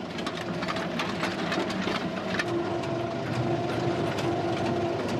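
Bucket-chain excavator running: its chain of steel buckets clanks and rattles continuously as it scrapes clay, over a steady machine hum.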